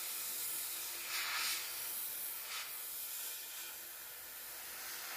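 Airbrush hissing as it sprays water-thinned paint, swelling louder about a second in and again at about two and a half seconds as the trigger is pulled back.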